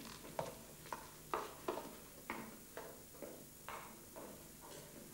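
A wooden stick scraping and stirring inside a brick stove in short, uneven strokes, roughly two a second.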